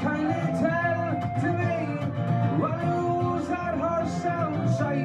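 Fiddle and acoustic guitar playing a tune together, with long held notes that slide between pitches over the guitar accompaniment.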